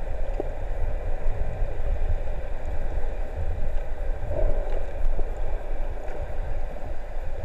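Muffled underwater noise picked up by a camera just below the sea surface: a steady low rumble and wash of moving water.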